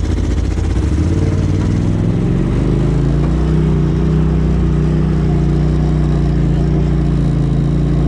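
Polaris RZR side-by-side's engine heard from the driver's seat. Its pitch rises over the first few seconds as the machine pulls away, then it runs steadily at low speed.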